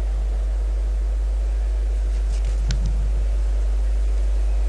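Steady low electrical hum with a faint hiss from the sound system, and one faint click about two and a half seconds in.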